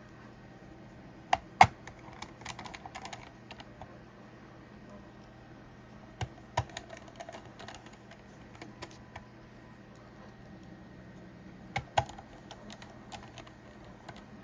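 Small screws and a screwdriver clicking against the sheet-metal cover of an HP server power supply as the cover is screwed back on: three pairs of sharp clicks about five seconds apart, each followed by a run of light ticking.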